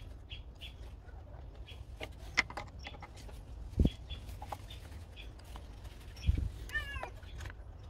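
Short high bird chirps repeating in the background, with three sharp knocks from handling the mitre saw's switch box and screwdriver. Near the end there is a brief pitched animal call.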